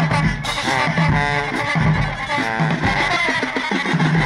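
High school marching band playing an upbeat tune, with a low note figure repeating on a steady beat under the higher parts.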